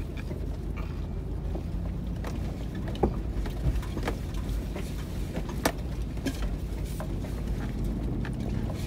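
Low, steady rumble of a Toyota Land Cruiser 100's engine and tyres heard inside the cabin as it crawls over a rocky track. A few sharp knocks cut through, the loudest about three seconds in and again over five seconds in.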